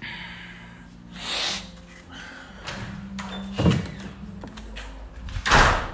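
Knocks and thuds of objects being bumped and handled: a brushing swish about a second and a half in, then two sharp thuds, the second the loudest, over a steady low hum.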